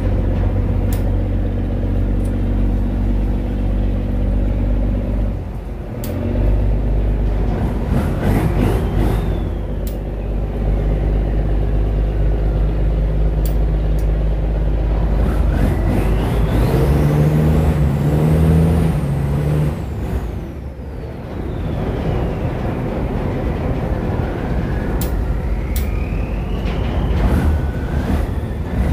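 A river cargo boat's engine running steadily, its pitch shifting a few times, with a higher whine that rises and falls.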